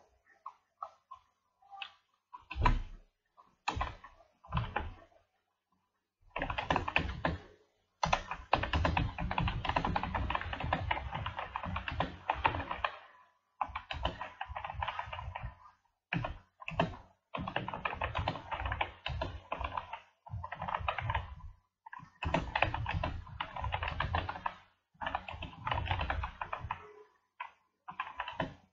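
Computer keyboard typing in quick runs of keystrokes separated by short pauses, with a few single key presses in the first few seconds.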